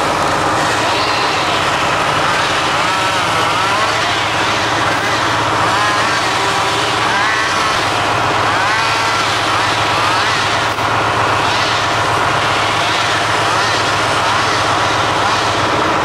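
County 1124 tractor's diesel engine running steadily while it powers the hydraulic log crane as the grapple swings, with a wavering whine that rises and falls several times. A single sharp click about eleven seconds in.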